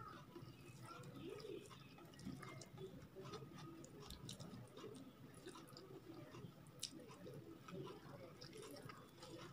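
Faint, wet eating sounds: chewing with small scattered mouth clicks, and fingers squishing soft food on a plate.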